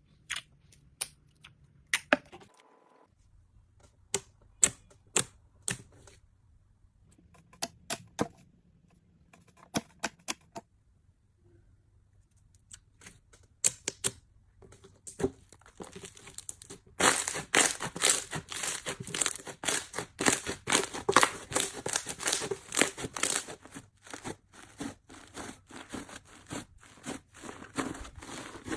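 Slime being played with: sharp, separate pops and clicks, one every half second to second, as it is poked and pressed. About two-thirds of the way through, this changes to a dense, continuous crackling as the slime is squeezed and kneaded.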